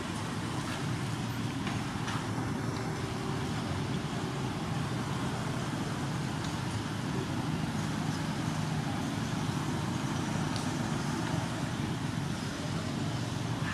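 Steady low outdoor rumble at an even level, with a few faint ticks.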